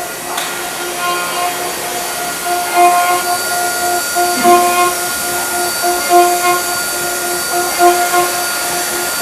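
CNC milling machine cutting a clay shoe-sole model: a steady hiss from the spindle and cutting, with whining motor tones that come and go as the axes move.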